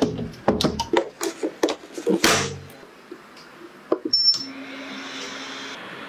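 A FOTILE countertop steam oven's door shuts with a series of sharp clicks and knocks. About four seconds in, its control knob is pressed and the oven beeps once. It then starts running with a steady low hum and hiss.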